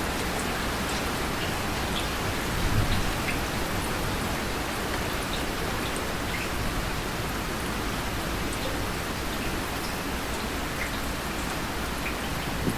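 Steady rain falling, with single drops heard as small ticks over the even hiss. A brief low thump comes about three seconds in.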